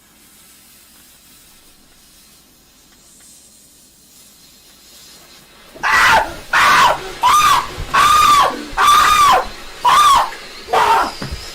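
A lit firework fizzing faintly, the hiss slowly growing, then about six seconds in a run of loud, evenly spaced shrieks, each rising and falling in pitch, about eight in five seconds.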